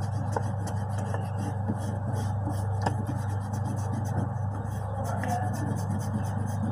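Rubber eraser rubbing on paper, erasing pencil lines.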